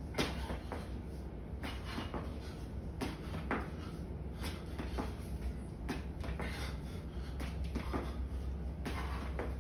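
Footfalls of shoes landing on a bare concrete floor during high-knee and high-kick drills: light thuds about twice a second over a steady low hum.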